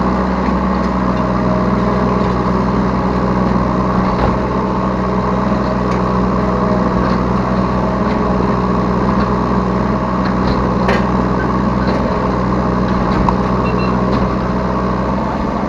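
Yanmar B3 Sigma 3-ton mini excavator's diesel engine running steadily, heard from the operator's seat, with a couple of faint clicks around four and eleven seconds in.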